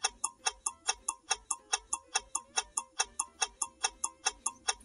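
Clock ticking steadily and quickly, about six ticks a second, laid under the talk as a countdown-timer effect while an answer is being thought over.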